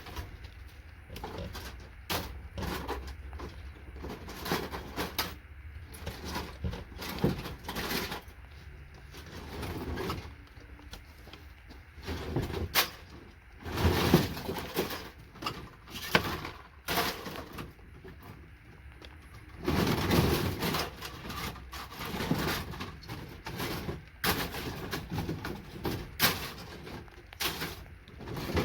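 Irregular clicks, knocks and clatter of hand tools working circuit boards, snapping MOSFETs off and dropping them onto a pile, with longer spells of rattling clatter about halfway and again about two-thirds through.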